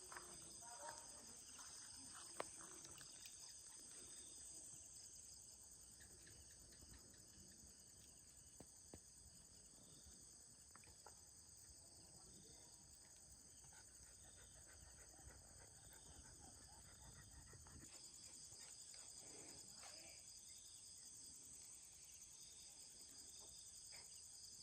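Faint, steady chorus of night insects, crickets trilling high and continuously.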